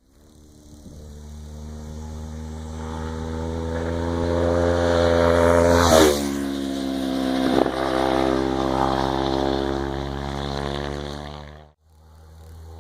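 Motorcycle engine running steadily and growing louder to a peak about six seconds in, where a vehicle passes close with a drop in pitch. A second, smaller pass follows a moment later, and the sound cuts off abruptly near the end.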